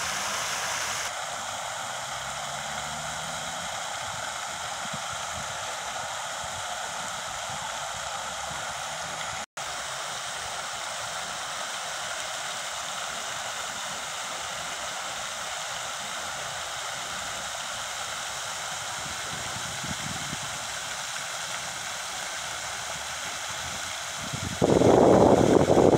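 Fountain jets splashing into a shallow basin: a steady rush of falling water that drops out for an instant about a third of the way in. Near the end a much louder rushing noise comes in and drowns it.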